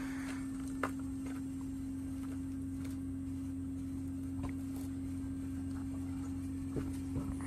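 Carrier Infinity heat pump outdoor unit running after being powered back up: a steady, even hum with a single tone, plus a few faint ticks.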